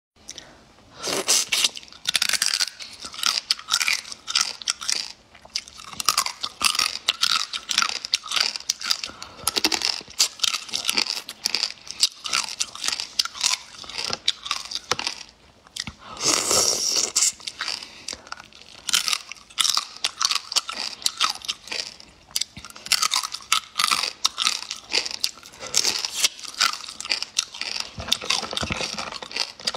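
A person eating: crisp crunching bites and chewing one after another, close to the microphone, of pickled food taken from a jar of brine.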